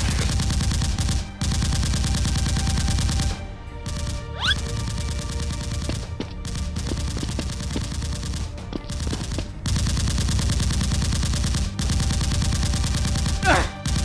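Rapid automatic gunfire in long sustained bursts with short breaks, thinning to scattered shots in the middle before picking up again.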